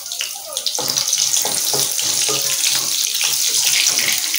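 Potato pieces frying in hot oil: a steady sizzle with crackling that grows louder about a second in.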